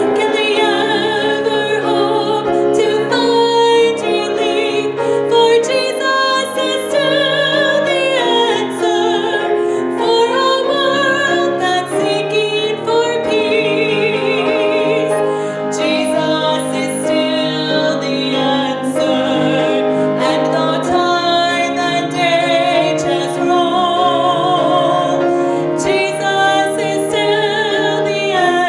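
A woman singing a solo with vibrato into a microphone, accompanied by piano.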